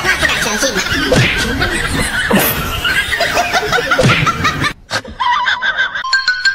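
People laughing in short, repeated snickers and chuckles, cut off abruptly about five seconds in; a few held tones follow near the end.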